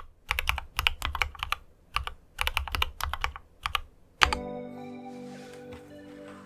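Mechanical keyboard typing in quick bursts of keystrokes, Dygma Raise split keyboard with lubed Cherry MX Red linear switches. Music comes in about four seconds in.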